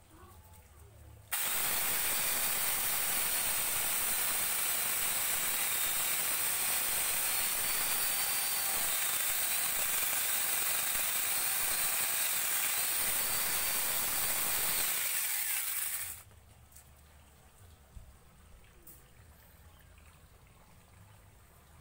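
Electric angle grinder fitted with a mini chainsaw attachment, switched on about a second in and running at high speed for about fifteen seconds as the chain cuts into a tree trunk, its whine wavering in pitch under load, then switched off.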